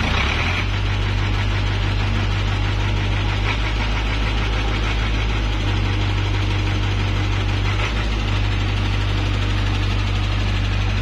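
Diesel engine of a new 50 kVA canopied generator set running at a steady speed on its first run, just after starting. It makes a loud, even drone.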